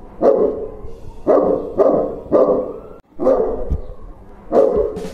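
A Saint Bernard barking six times, deep and loud, the barks about half a second to a second apart with a short pause in the middle.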